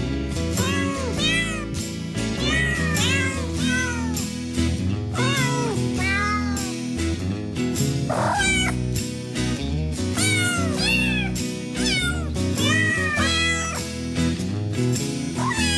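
Kitten mewing over and over, each high mew rising and falling in pitch, about one or two a second, with one longer rising cry a little past the middle. Background music plays underneath.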